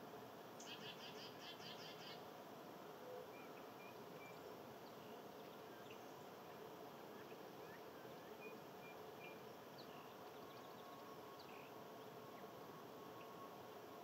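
Near silence: faint outdoor ambience with a steady low hum, a brief rapid high trill about a second in, and a few faint, short high chirps scattered through.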